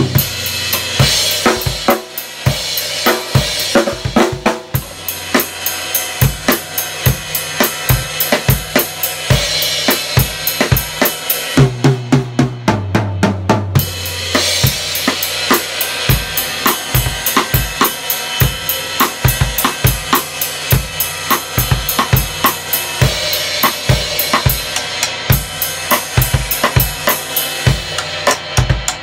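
Drum kit played with sticks: fast, steady strokes on snare, bass drum and cymbals. About twelve seconds in, the cymbals drop out briefly and lower drums ring in a short run falling in pitch before the full kit comes back.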